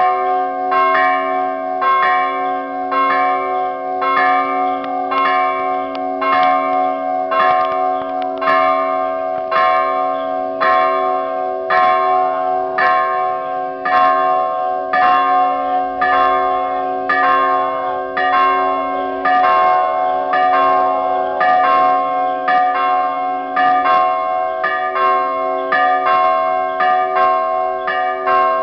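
Church bells ringing festively as the feast-day procession circles the church: several bells of different pitches struck over and over in a quick, steady pattern, about one to two strokes a second, their hum ringing on underneath.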